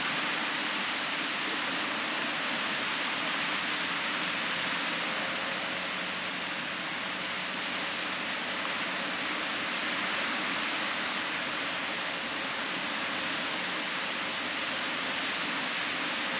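Steady hiss of small waves washing in over a shallow sandy shore.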